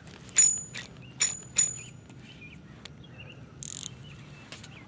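Sharp clicks from fishing tackle, four in the first two seconds, each with a brief high metallic ring, as a snagged lure's line and baitcasting reel are worked by hand. A short hiss follows about three and a half seconds in.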